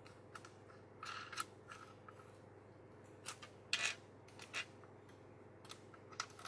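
Faint, scattered small clicks and scrapes of CPU-cooler mounting pins and nuts being handled and pushed into place on a motherboard's socket retention bracket. The loudest cluster comes a little after the midpoint.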